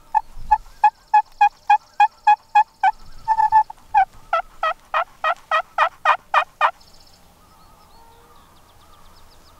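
Turkey yelping: a long run of evenly spaced yelps, about three a second, growing louder about four seconds in and stopping near seven seconds.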